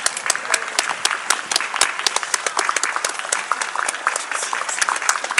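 Spectators applauding steadily, many separate hand claps overlapping in quick irregular succession.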